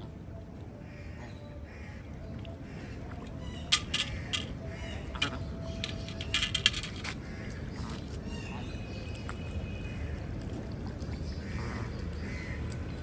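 Ducks quacking now and then over a steady wash of rain and water, with a few sharp clicks about four and seven seconds in.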